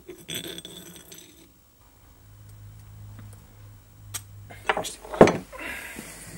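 Small glass bottle and wooden arrow pieces being handled on a wooden workbench: light clinking and rubbing, then a few sharp knocks about five seconds in as they are set down on the bench.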